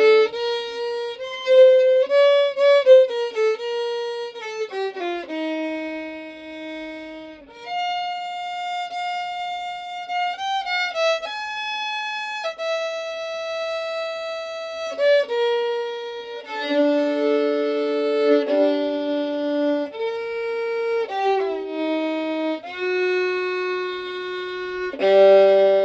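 Solo violin played slowly in an improvised run of tunes: long held notes with slides between them, and from about two-thirds of the way through, two notes bowed together, ending on a low chord.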